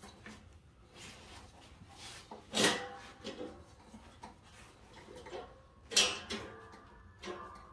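Hands working a mower-deck V-belt onto its metal pulleys, pushing against the spring-loaded tensioner arm to get enough slack: rubbing and small knocks, with two sharp knocks about two and a half seconds in and again about six seconds in.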